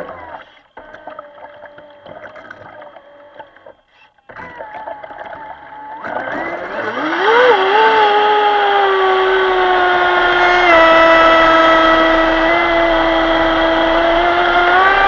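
Leopard 2000kv brushless motor of an RC speedboat on 5S. It is quiet at first, then about six seconds in it spins up with a rising whine as the boat accelerates. It then holds a loud, steady whine that dips slightly twice and climbs again near the end.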